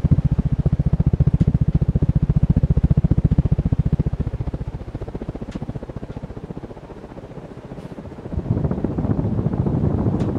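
Hunter Studio Series ceiling fan running, its blades' moving air buffeting the microphone in a fast, even pulse. The buffeting eases in the middle and comes back stronger near the end.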